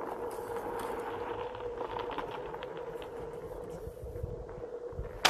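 Electric unicycle rolling over dirt and gravel: a steady motor whine over the crunch of the tyre, which dies away as the rider slows to a stop. A sharp knock comes at the very end.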